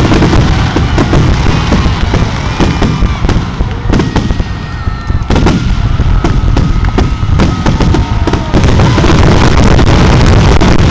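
Aerial fireworks shells bursting in a rapid barrage: overlapping booms and crackles over a heavy low rumble. It eases a little around the middle and builds again near the end.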